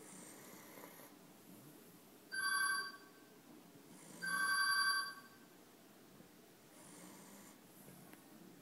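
Soft, slow snoring, with two loud electronic tones cutting in over it, the second a little longer than the first.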